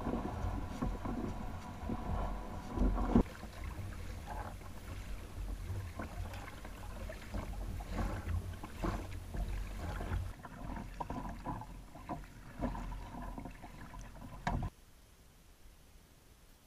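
Ocean Kayak Prowler Ultra 4.3 fishing kayak being paddled over the sea: repeated paddle strokes splashing and water slapping the hull, with a steady low wind rumble on the microphone. The sound falls away abruptly about three-quarters of the way through.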